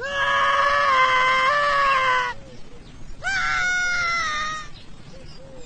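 An animal screaming in two long, loud calls: the first lasting about two seconds, the second, starting about three seconds in, lasting about a second and a half.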